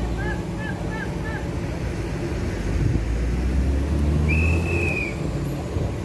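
Hydraulic excavator's diesel engine running steadily. A few short high chirps sound in the first second and a half, and a single high whistle-like tone lasts about a second, some four seconds in.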